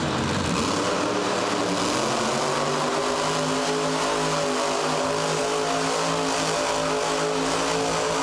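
Grave Digger monster truck's supercharged V8 engine revving up over the first two or three seconds, then held at high, steady revs while the truck spins donuts.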